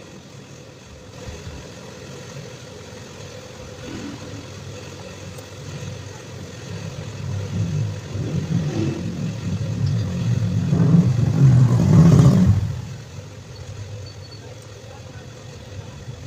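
Motorcycle engine idling, then revved up, climbing over several seconds to a peak about twelve seconds in before dropping quickly back to idle.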